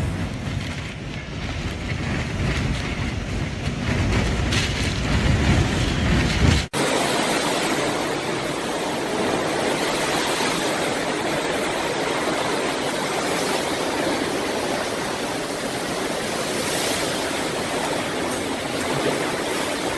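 Storm wind: heavy gusts buffeting the microphone with a deep rumble for the first several seconds, then after a sudden cut an even, steady rushing noise of storm wind and driving weather.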